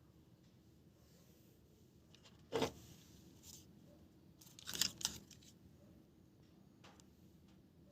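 Faint handling noises of small parts being worked by hand: a brief scrape or rustle about two and a half seconds in, a short cluster of rustles and clicks near five seconds, and a small click near the end.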